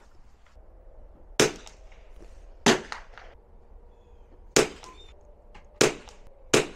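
Five sharp .22 rimfire rifle shots, unevenly spaced, the last two less than a second apart.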